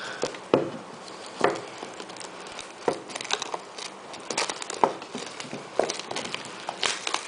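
Rustling, crinkling and small irregular clicks and knocks of a cardboard phone box and its seal being broken and opened by hand.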